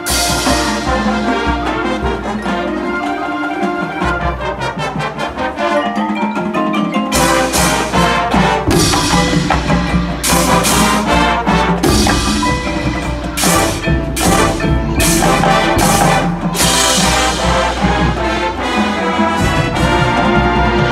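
High school marching band playing its field show: full brass chords over percussion, with sharp percussion accents coming in strongly from about seven seconds in.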